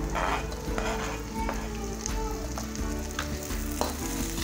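Sliced green and red chilies sizzling as they hit hot oil in a metal wok, with the stir-fry frying steadily. A few sharp scrapes and knocks come from the spatula and cutting board against the wok as they are pushed in and stirred.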